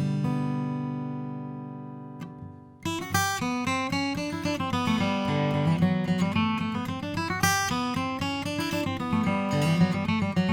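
Taylor 616CE acoustic guitar, with maple back and sides, played: a chord is left to ring and fade away, then about three seconds in a new passage of quick, rhythmic chord playing with moving bass notes begins.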